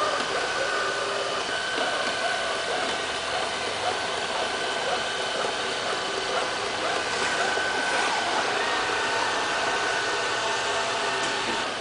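LL-A320 robot vacuum cleaner running, a steady whir of its motor and brushes with a thin steady whine over it.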